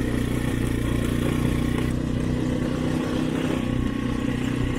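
Motorcycle engine running at a steady pitch while the bike rides along.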